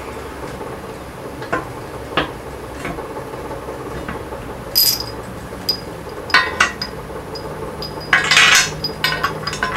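Cast iron wheel center from a 1939 Allis-Chalmers B being set down onto a steel tractor rim and turned by hand to line up the bolt holes: a few light knocks, a ringing metal clank about five seconds in, then a run of clanks and metal scraping on metal toward the end.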